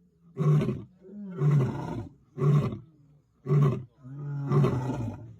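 Lion roaring: a run of low calls about one a second, some drawn out and some short grunts.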